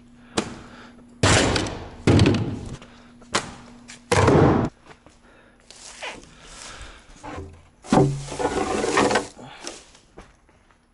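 About four loud thuds and scuffs, with softer rustling between them, as a long, weathered wooden plank is lifted and moved over the ground.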